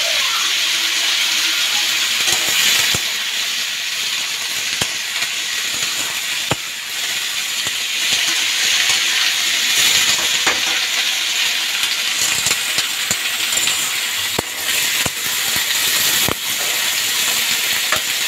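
Chopped ivy gourd, onion, capsicum and potato sizzling steadily in hot oil in a metal wok, with scattered clicks and scrapes of a spatula stirring against the pan.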